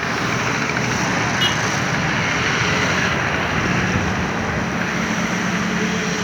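Steady engine and traffic noise: a continuous drone with faint low hum, and a brief high chirp about a second and a half in.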